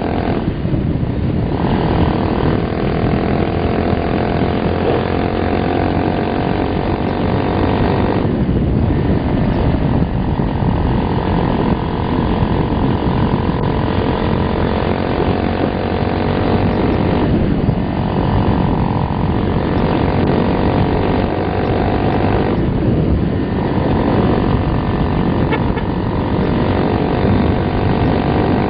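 Motorcycle engine running hard under acceleration, heard from the rider's seat with wind rumble on the microphone. Its note drops away briefly about four times, near the start and again about a third, two thirds and four fifths of the way through.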